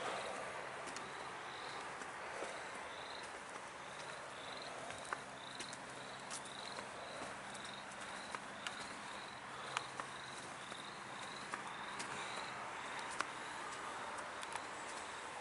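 A cricket chirping steadily, about one and a half short chirps a second, over a faint steady hum, with scattered light clicks.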